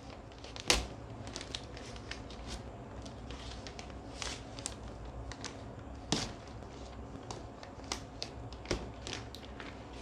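Cardboard box and packaging being torn open and handled: scattered scrapes, crinkles and light clicks, with a sharp knock about a second in and two more around six and nine seconds in.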